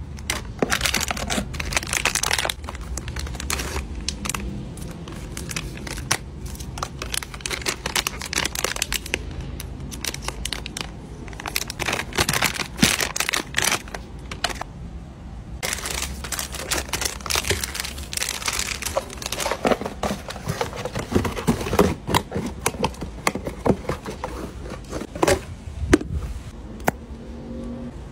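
Plastic mailer pouch and cardboard box packaging crinkling and rustling in irregular bursts as they are handled, with scattered sharp clicks from the handling.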